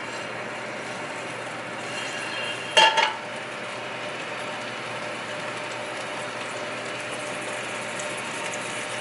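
Food sizzling steadily in a frying pan on the stove, with one short, sharp clatter of a utensil or cookware about three seconds in.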